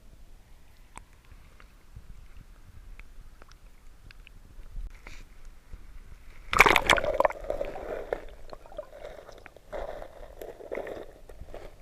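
Water sloshing and splashing, with a loud splash about six and a half seconds in and more uneven splashing near the end.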